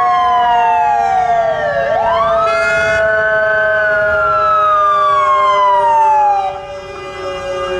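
Fire engine siren wailing. Its pitch falls slowly, sweeps back up about two seconds in, then slowly winds down again and cuts out near the end, over a steady blaring tone.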